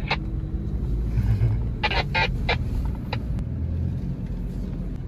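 4x4 engine and drivetrain running steadily under load in four-wheel high on a muddy trail, heard from inside the cab as a low rumble. A few short sharp sounds come about two to three seconds in.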